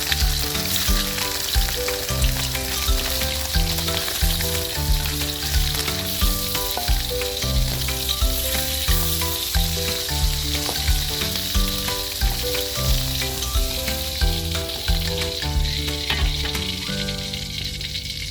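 Food sizzling in hot oil in a pan, a steady hiss that runs under background music with a regular beat.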